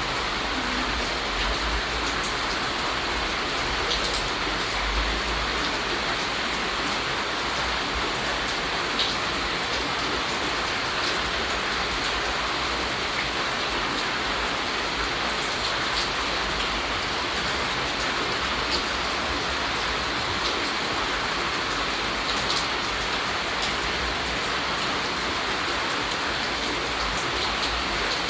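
Steady rain falling: a constant hiss with single drops ticking sharply here and there.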